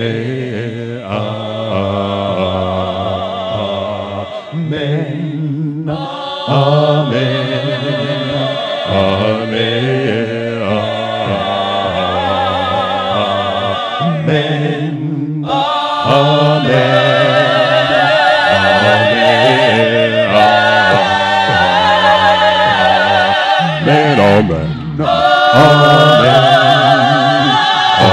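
A cappella gospel vocal group singing unaccompanied in close harmony through a PA, in phrases with brief breaks between them; the voices grow louder about a fifth of the way in, again at the midpoint, and once more near the end.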